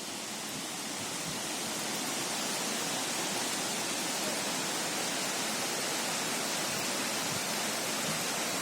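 Waterfall on a river: a steady, dense rush of falling water, growing a little louder over the first two seconds.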